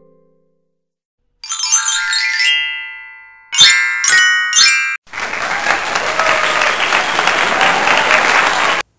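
Quiz-game sound effects for a correct answer: a bright chime about a second and a half in, three quick ringing tones around four seconds in, then recorded applause for about four seconds that cuts off suddenly.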